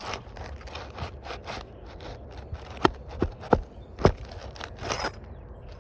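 Metal roof snake scraping and clacking against asphalt shingles while they are unsealed and nails worked loose, with four sharp knocks in the middle.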